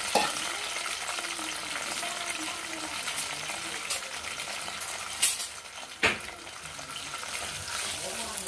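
Chopped tomatoes, green chillies and onions sizzling in hot oil in an aluminium pot, with a few sharp knocks, the loudest about five and six seconds in. Near the end a ladle stirs the vegetables.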